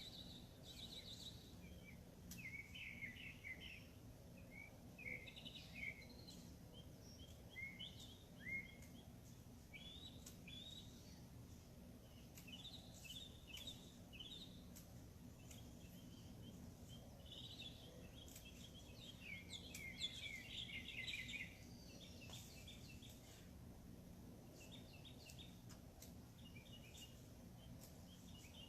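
Birds chirping faintly in short chirps and trills throughout, busiest about twenty seconds in, over a steady low hum.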